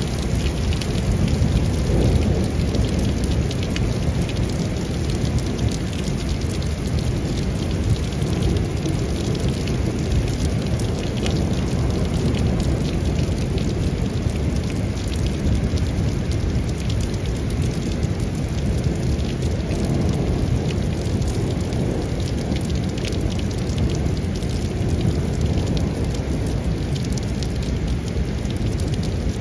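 Heavy rain falling steadily in a thunderstorm, with a dense patter of drops and a low rumble of thunder that swells about two seconds in and again about two-thirds of the way through.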